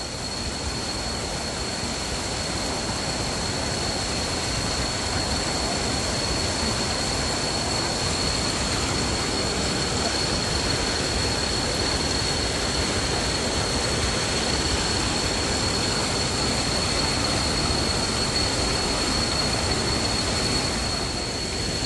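Steady rush of falling water, with a thin, steady high-pitched whine running over it.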